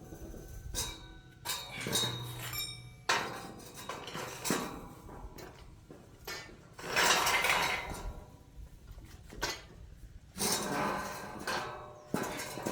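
Pieces of metal clanking and scraping: an irregular series of knocks, some ringing briefly, with longer scrapes about seven and eleven seconds in.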